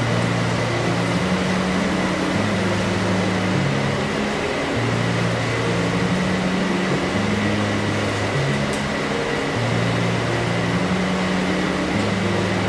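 Background music of slow, stepping bass notes over a steady, loud rushing noise from the kitchen, like a fan running.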